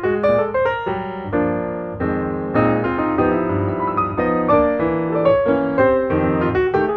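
Instrumental piano music: a steady run of struck notes that ring and fade, with chords under a moving melody.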